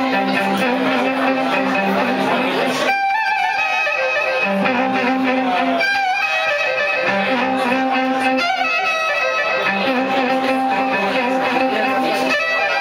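Violin played with a bow: held melodic notes, some sliding between pitches, over recurring low sustained notes.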